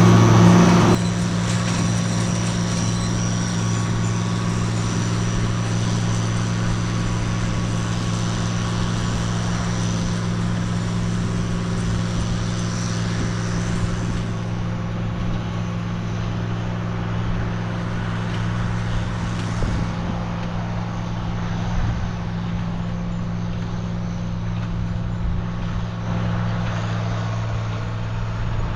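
Tractor engine running steadily at a constant speed under load while pulling a square hay baler.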